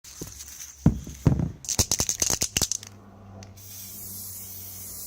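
Aerosol can of matte lacquer shaken, its mixing ball rattling quickly for about a second after a couple of knocks. It is then sprayed with a steady hiss.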